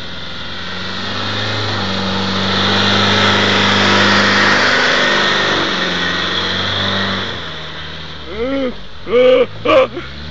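Land Rover engine revving hard as the vehicle drives out of deep mud where it was stuck; the engine note rises and strengthens, then eases back. A few short shouts near the end.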